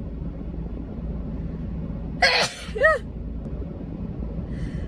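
A woman sneezing once about two seconds in: a sharp burst followed right after by a short, high-pitched voiced cry. The sneeze is set off by a self-administered nasal swab pushed deep into her nostril.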